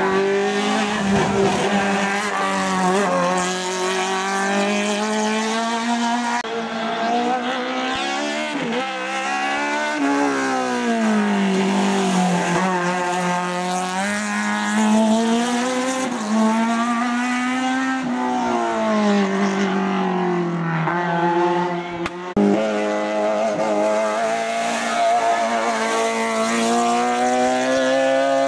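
Opel Kadett GTE hillclimb race car's four-cylinder engine running hard, its pitch repeatedly climbing and falling as it accelerates, changes gear and slows for corners.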